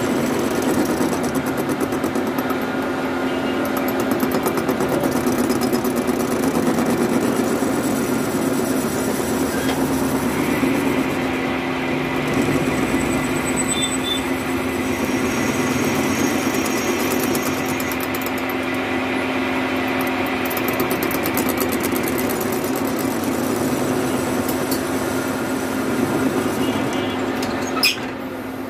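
A machine running steadily with a constant hum. A higher steady whine joins about ten seconds in and fades out around twenty-two seconds, and a single sharp click comes near the end.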